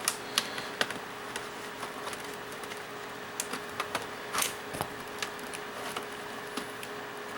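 Scattered small clicks and taps of a laptop's plastic case and clips being pried at and handled, one slightly longer scraping click about four and a half seconds in, over a faint steady hum.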